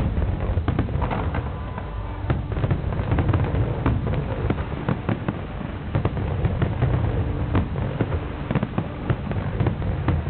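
Aerial fireworks display: a rapid, continuous barrage of shell bursts and crackle over a steady low rumble.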